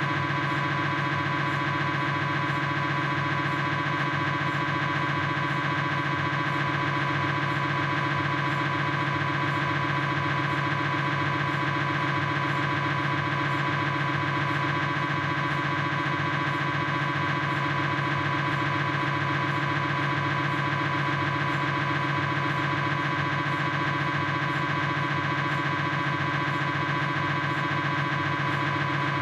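Philips 1.5 T MRI scanner's gradient coils buzzing during a proton-density fat-suppressed sagittal (SPIR) knee sequence: a loud, steady, fast-pulsing drone with several strong steady pitches.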